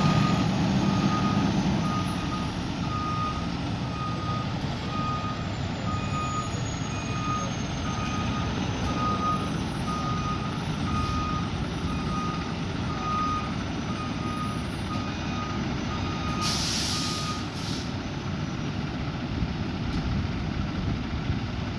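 Fire truck's backup alarm beeping about once a second over its running engine. The beeping stops near the end, with a short burst of air hiss from the air brakes.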